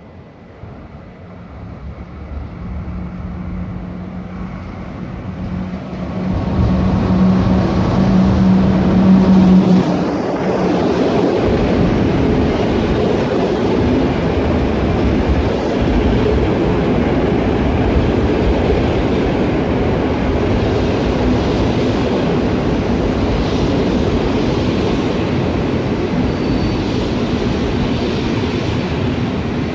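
PKP Intercity EP09 electric locomotive coming in along the platform with a steady low hum that swells and cuts off as it passes at about ten seconds, followed by its passenger coaches rolling past with steady wheel-on-rail noise.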